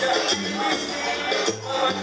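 Salsa music with bass, percussion and shakers playing over a dance floor.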